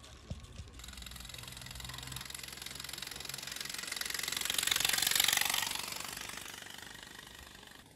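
Miniature railway locomotive and wagons rattling across a steel girder bridge, the fast clatter of wheels on rail growing louder as the train approaches, loudest about five seconds in, then fading as it passes.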